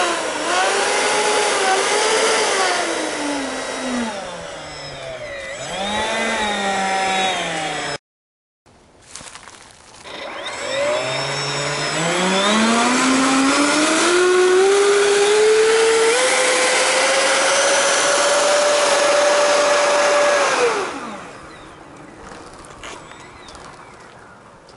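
Four 70 mm eleven-blade electric ducted fans whine, their pitch rising and falling as the throttle is worked. After a short gap about 8 s in, they spool up over several seconds to a steady high-pitched full-power whine, then wind down about 21 s in.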